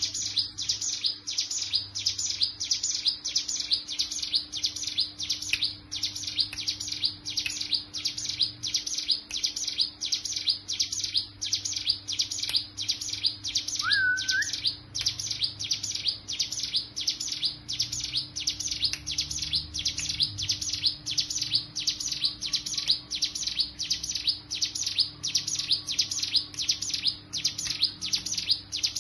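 Ciblek gunung (mountain prinia) song in the rapid, unbroken 'ngebren' style: high chirps repeated evenly, several a second, played as a lure ('pancingan') to set caged birds singing. About halfway through, a single short, lower whistle rises at its end.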